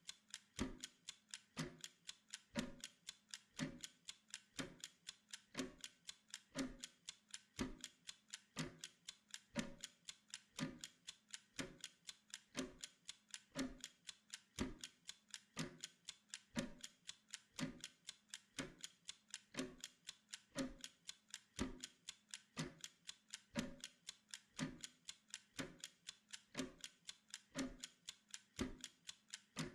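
Steady clockwork ticking for a Pomodoro timer: several light ticks a second, with a stronger, deeper tick about once a second.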